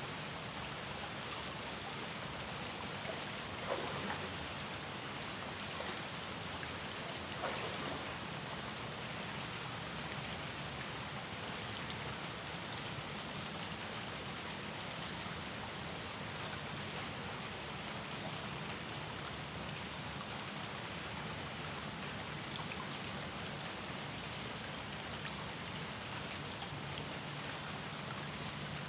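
Steady rain falling on a pond's surface, an even hiss with a few louder individual drops about 4 and 7 seconds in.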